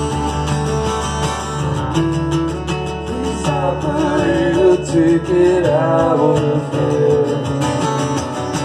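Two acoustic guitars strummed and picked together in a live duet. From about three and a half seconds in, a melody with bending pitch rises over the strumming.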